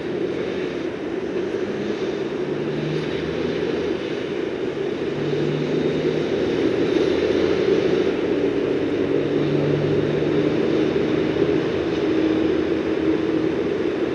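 Road traffic including trucks passing on a city road: a steady drone of engines and tyres with faint engine tones, growing a little louder about five seconds in.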